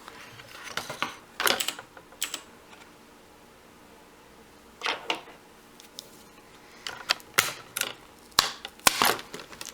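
Sharp plastic clicks and snaps from a tablet's screen being pried and popped off its housing. They come in scattered groups, thickest in the last three seconds.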